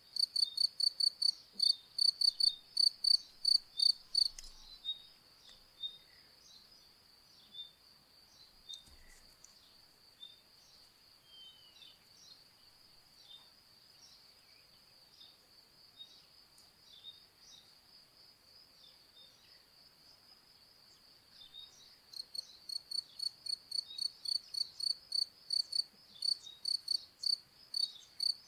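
Crickets chirping in a steady high-pitched rhythm of about three pulses a second. The chirps are loud for the first four seconds, fade to a faint continuous trill, then come back loud about 22 seconds in. Faint short bird chirps are scattered throughout.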